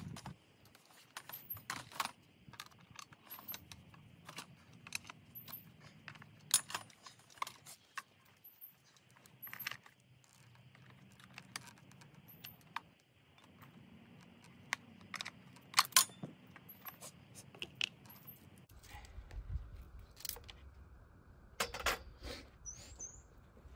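Light metallic clinks and rattles scattered throughout: a Stihl chainsaw's chain being taken off its bar by hand.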